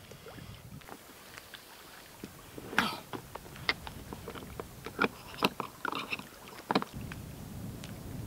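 Inflated Kokopelli Rogue Lite packraft being handled and dragged over dry grass and stones: a string of sharp crinkles, scrapes and knocks from its coated fabric and the gear on it, loudest about three seconds in.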